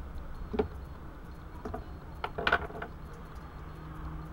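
A few light knocks and clatters of small wax pieces and tea-light cups being picked up and set down on a worktop: one about half a second in, then a short cluster around two and a half seconds in.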